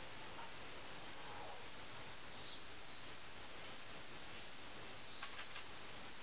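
Steady faint hiss with faint, high, short bird chirps recurring in the background. About five seconds in, a few quick small clicks come from fingers handling tiny parts of a 1:50 scale model excavator boom.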